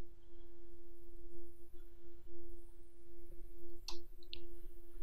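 Steady low background hum holding one pitch, with two or three faint clicks near the end.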